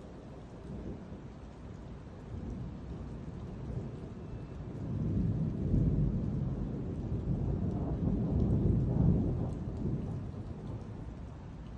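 Rolling thunder: a low rumble that builds about four seconds in, stays strong for several seconds and fades near the end, over steady rain.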